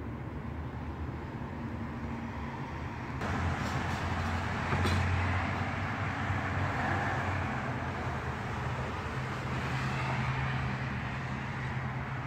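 Steady low mechanical hum with a background rumble, growing louder about three seconds in.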